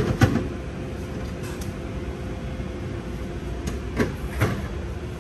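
Steady background hum of a sandwich shop, with a few sharp clicks and knocks at the start and again about four seconds in.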